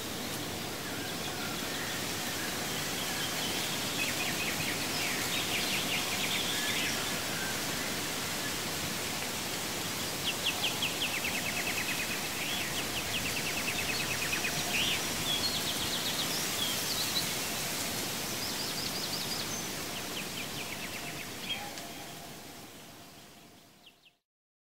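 Background nature ambience: a steady even hiss with small birds trilling and chirping on and off throughout, fading out near the end.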